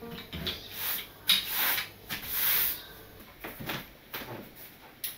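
A long-handled broom brushing over a wooden floor in three short strokes, then a few light knocks and clicks.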